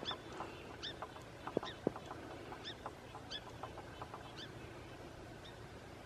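Footsteps on snow, with a short high squeak repeating roughly once a second and slowing slightly near the end.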